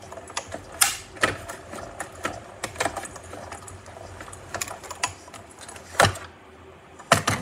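Hand-cranked Stampin' Up! Cut & Emboss die-cutting machine being turned, rolling a stack of cutting plates through its rollers with irregular clicks and creaks. A louder clack comes about six seconds in.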